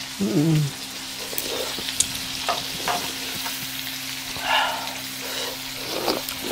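Shrimp and vegetables sizzling steadily on a hot grill pan over a portable gas stove, with a few light clicks and a short low vocal sound near the start.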